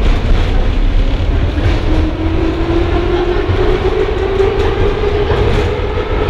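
Budapest Metro line 3 Soviet-built Metrovagonmash 81-717 metro car running through the tunnel, heard from inside the car: a steady low rumble with wheel and rail noise. From about two seconds in, a motor whine rises in pitch.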